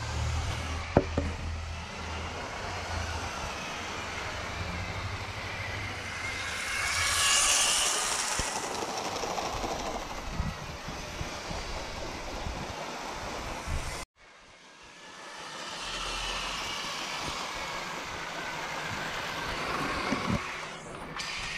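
Lego 9V model train running along its track: a steady motor whine and wheel noise, rising to its loudest about a third of the way in. The sound breaks off abruptly about two-thirds of the way through, then builds up again.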